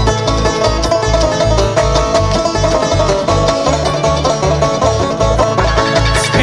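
Live bluegrass band playing an instrumental passage: banjo picking out front over guitar, with steady bass notes about two a second.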